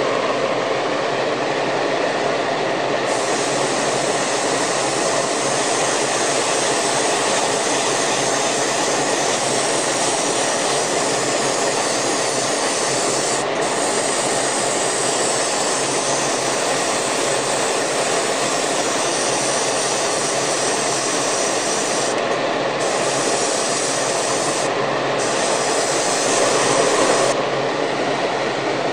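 Hobby spray booth's exhaust fan running steadily, a loud even rush of air with a faint hum.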